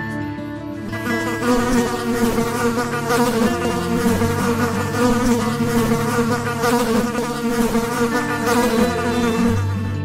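A flying insect buzzing: a steady, wavering hum that grows fuller about a second in.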